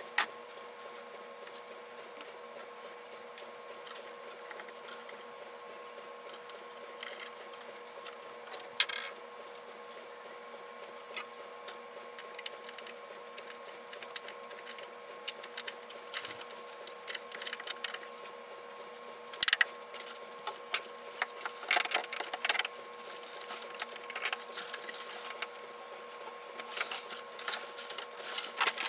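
Scattered clicks and knocks from dismantling a model railroad layout's wooden benchwork, coming thicker in the second half, over a steady electrical hum.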